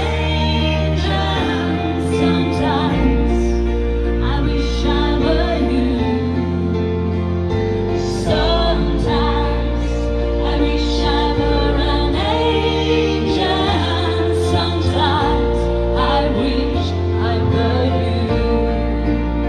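A slow song played live on an electronic keyboard: a steady bass line and held chords, with a melody line gliding over them.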